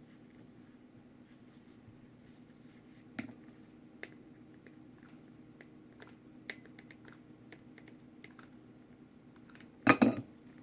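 Scattered light clicks and taps from craft materials being handled on a work surface, with a louder short knock or clatter about ten seconds in, over a steady low hum.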